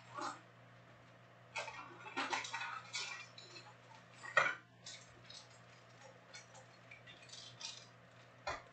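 Trading-card pack wrappers crinkling and tearing as Topps Chrome packs are ripped open by hand, then a stack of cards being handled, in irregular bursts of rustling and snapping with the sharpest about halfway through. A faint steady low hum runs underneath.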